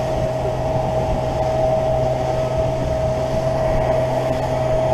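Honda four-stroke outboard motor running steadily at cruising speed, with a constant high tone over the rush of water and wind as the boat planes along.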